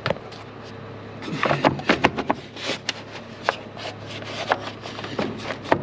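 Scattered sharp clicks, knocks and rubbing from hands handling parts and tools while working on a tractor, busiest a little over a second in, over a steady low hum.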